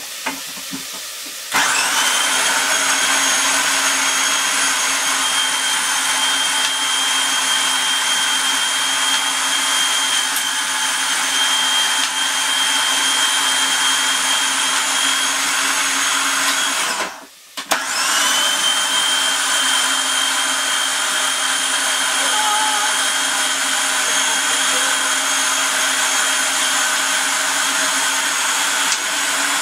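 Electric food processor motor running as it chops mushrooms, a steady high whir that spins up about a second and a half in. It runs in two long bursts, cutting out for about half a second around the middle before starting again.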